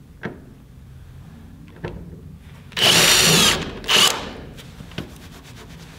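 Kobalt 24-volt cordless drill boring a hole into a wooden ledger board through a steel hanger plate. It runs at full speed with a high whine for most of a second about three seconds in, then gives one short second burst. A few light taps of handling come before and after.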